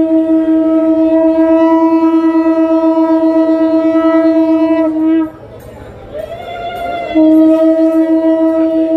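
Conch shell (shankha) blown in long, steady, loud blasts, as sounded during a Hindu aarti: one held for about five seconds, a short break with a fainter wavering tone, then a second long blast starting about seven seconds in.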